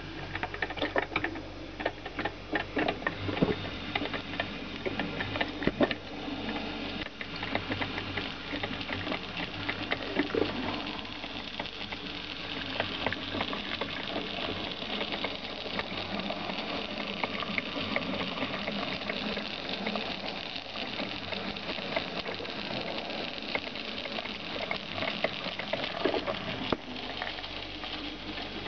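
Philips drip coffee maker brewing: crackling and gurgling as its heater boils water up the tube, settling after about seven seconds into a steady bubbling hiss.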